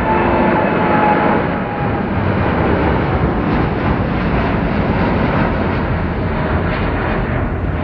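Jet airliner engines running loud. A high whine falls slightly and fades within the first two seconds, leaving a steady rushing roar.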